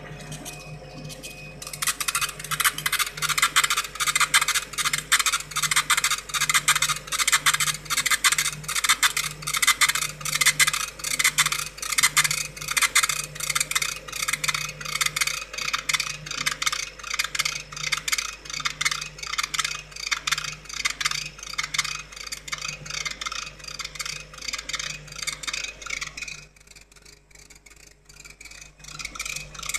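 CO2 laser engraving a glass bottle on a rotary attachment: a crackling hiss of the beam marking the glass, pulsing about three times a second as the head makes each pass, with a low motor hum pulsing in step. It stops for about two seconds near the end, then starts again.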